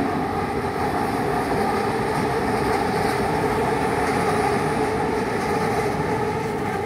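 Kelana Jaya Line LRT train, a linear-induction-motor metro, running along the elevated track: a steady, loud rumble with a couple of held tones in it.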